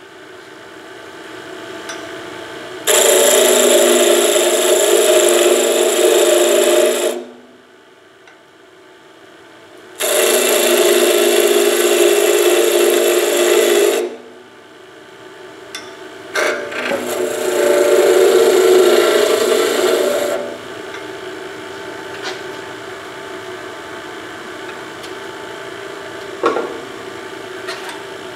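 Wood lathe running while a skew chisel cuts the spinning wood in three passes of about four seconds each, with a quieter hum from the lathe between cuts. There is a single knock near the end.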